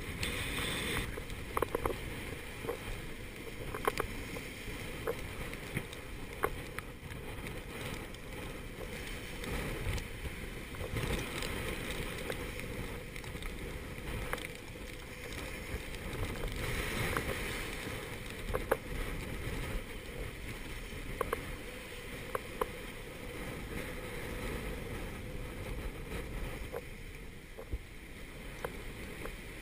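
Gale-force wind buffeting the microphone over the steady rush of breaking seas washing past a sailing yacht's hull, with a few louder surges of rushing water. Scattered sharp clicks and knocks come through throughout.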